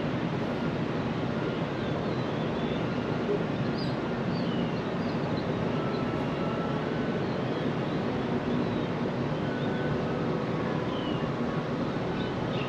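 Steady hum of city traffic across the river, with scattered faint bird chirps.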